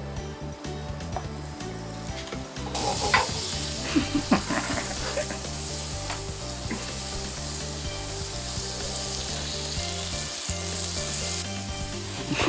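Food sizzling in a hot frying pan, with a few clicks of a utensil against the pan as the sizzling starts. The sizzle starts about three seconds in and cuts off near the end.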